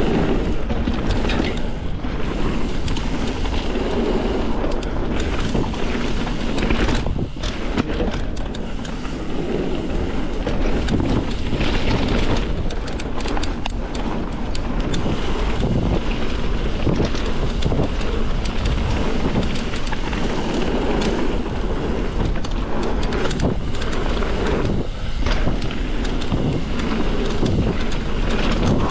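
Mountain bike riding fast down a dirt trail: wind buffeting the microphone over the rumble of knobby tyres on dirt and many short clatters and rattles from the bike over bumps.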